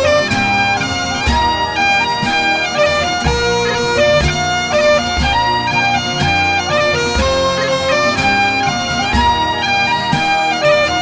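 Instrumental Scottish folk music: a bagpipe melody stepping between notes over a steady low beat.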